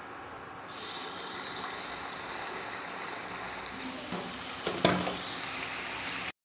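Pot-shaped samosas deep-frying in hot oil in a steel pan: a steady sizzle that gets louder about a second in, with one sharp knock about five seconds in. The sound cuts off suddenly near the end.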